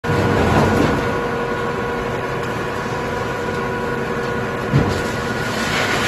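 Large log drum wood chipper running with a steady machine whine while scrap wood is dropped into its feed hopper. There is a single knock a little before the end, and the noise grows rougher toward the end.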